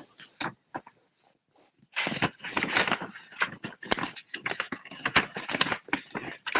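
Sheet of paper rustling and crinkling close to the microphone as a handmade letter is handled, with a brief pause about a second in.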